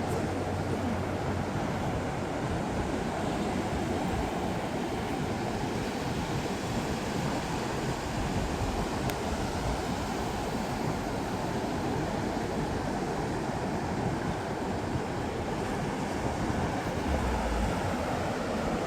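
Atlantic Ocean surf breaking and washing on the beach in a steady rush, with wind rumbling on the microphone now and then.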